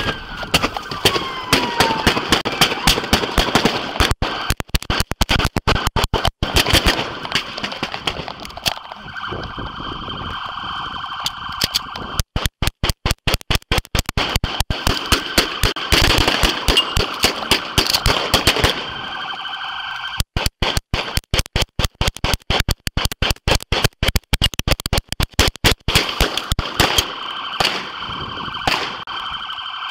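Rapid gunfire in a police shootout: dozens of shots in long volleys with short lulls, close and loud enough to overload the microphone, over a steady high electronic tone.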